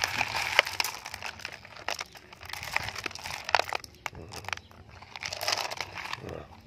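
Crushed stone scraped up by hand from a gravel pile and dropped into the beds of plastic toy dump trucks: a run of rattling clicks and crunches, loudest about half a second in and again about three and a half seconds in.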